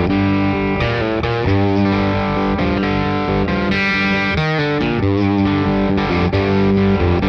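Electric guitar playing sustained chords and notes with a slightly overdriven, boosted tone, run through a JHS Clover preamp and Whitey Tighty compressor into a Fender '65 Deluxe Reverb amp.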